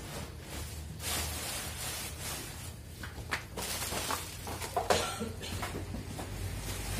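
Clear plastic wrapping crinkling and a cardboard carton being handled during packing, in irregular rustles, with a sharp knock about five seconds in.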